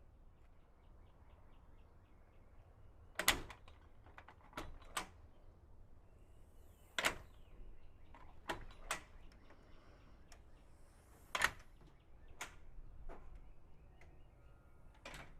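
Aluminum-frame screen door swinging shut on its closer and latching: a series of about nine sharp, irregular clacks and knocks, the loudest about three seconds in and again near eleven seconds. This is the closer being tested after its adjustment screw was set so that the door closes.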